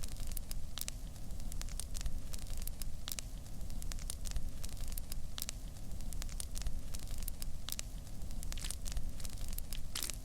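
Pizza cooking in a hot pan: irregular sharp crackling pops, about two a second, over a steady low rumble.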